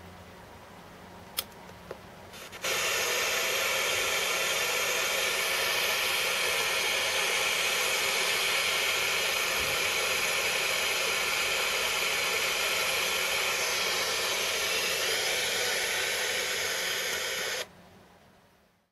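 A click about a second in, then from about three seconds in the Android-robot mini speaker's FM radio puts out steady, loud static hiss with no station tuned in while it scans for channels. The hiss cuts off suddenly near the end.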